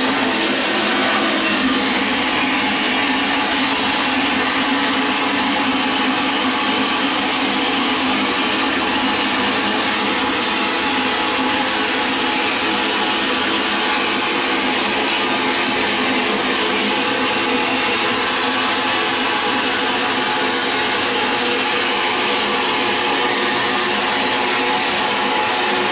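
Vapor blasting cabinet's blast gun spraying a slurry of water and glass beads onto a carburetor: a loud, steady hiss of air and spray, with a faint steady hum under it.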